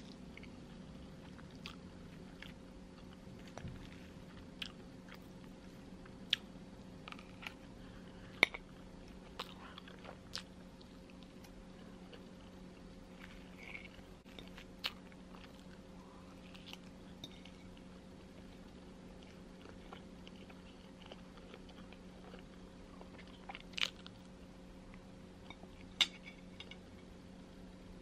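Scattered small clicks and taps at an irregular pace, a few of them sharper and louder, over a steady low electrical hum.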